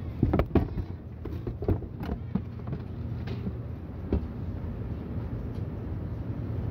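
Steady low rumble of supermarket background noise, with a few short clicks and knocks in the first two and a half seconds and one more about four seconds in.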